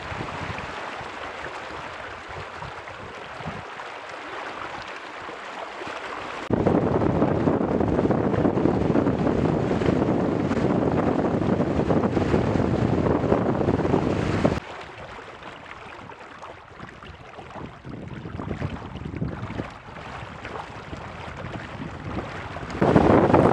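Strong wind buffeting the microphone of a camera mounted on a small sailing catamaran, over water rushing and splashing along the hull. The level jumps up or down suddenly a few times, about six, fourteen and twenty-three seconds in.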